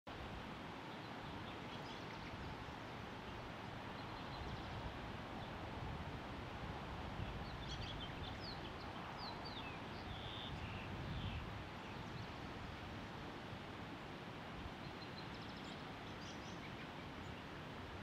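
Small songbirds giving short, high chirps and quick falling call notes, mostly in a cluster about halfway through, over a steady outdoor background hiss.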